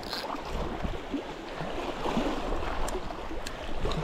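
Wind buffeting the microphone over the wash of sea water around the rocks, with a couple of light clicks near the end.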